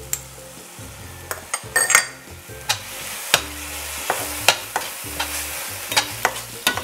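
Fermented bean paste and chili sauce sizzling in a hot stainless-steel frying pan while a metal spatula stirs and scrapes it, with frequent sharp clicks of the spatula against the pan.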